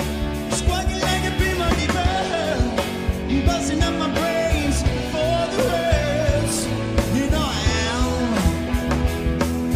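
Rock band playing a song: a male singer's voice over electric guitar, bass and drums with a steady beat.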